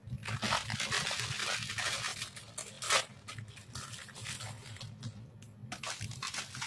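Plastic instant-noodle packet crinkling and tearing open in the hands, in irregular crackles, with one sharper crack about three seconds in.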